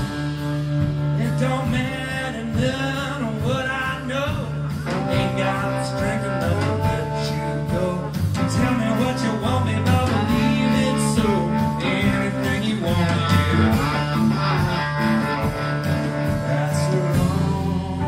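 Live band music: a man singing into a microphone over guitar accompaniment with a steady beat.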